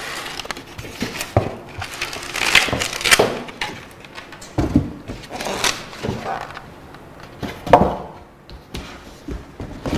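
Styrofoam packing blocks lifted off a metal machine and tossed aside: irregular rubbing with several sharp knocks.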